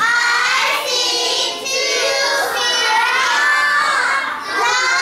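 A class of young children's voices chanting together in a sing-song way, with short breaks between phrases.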